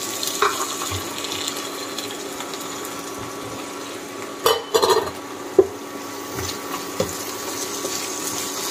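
Wooden spatula stirring and scraping chickpeas and boiled potato pieces through sizzling tomato masala in a non-stick frying pan, with a few sharp knocks of the spatula against the pan a little past halfway.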